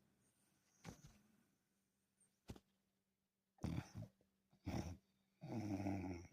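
Sleeping dog snoring: a few short, faint breaths, then a longer, stronger snore near the end.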